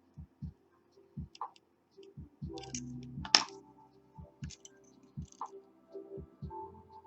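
Pick and tension tool working the pin stacks of a KABA Gemini lock: scattered small clicks and taps at an uneven pace, with one sharper, louder click about three and a half seconds in.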